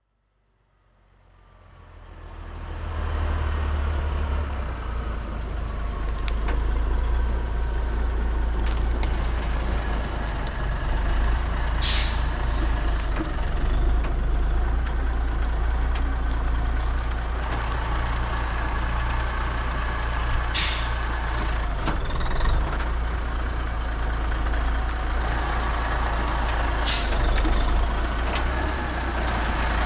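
Heavy diesel equipment engine running steadily with a deep rumble, fading in over the first few seconds, with three brief sharp knocks spread through.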